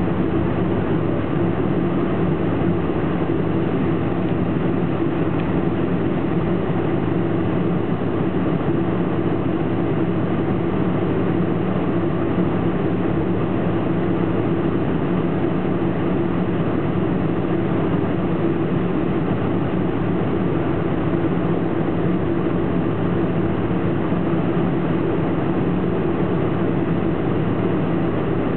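Steady cabin drone of a Boeing 747-400 taxiing after landing: engines running at low taxi power under a constant airy hiss, with a steady low hum that does not change.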